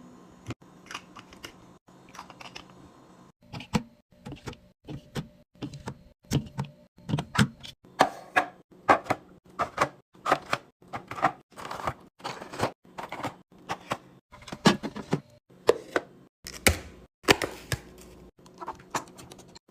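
Items being set down and arranged in a mini fridge: a run of clicks, clinks and knocks, sparse at first, then about one to two a second from a few seconds in.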